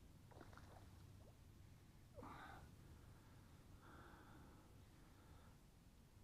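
Near silence, with a few faint short sounds, the clearest about two seconds in.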